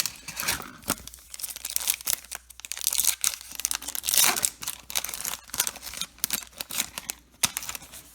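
Foil wrapper of a baseball card pack being torn open and crinkled by hand, in a run of irregular crackles.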